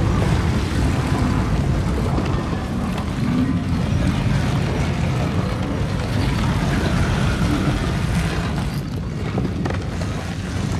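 A loud, steady low rumble of noise.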